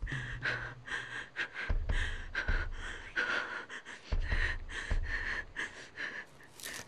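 A person breathing hard, panting in quick breaths about twice a second, growing fainter near the end.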